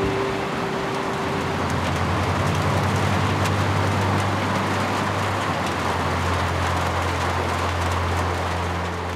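Heavy rain pouring down: a dense, steady hiss, with a steady low hum underneath from about a second in.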